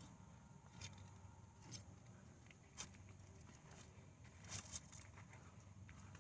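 Near silence with a few faint, scattered rustles and soft clicks of hands working sweet potato tubers out of the soil.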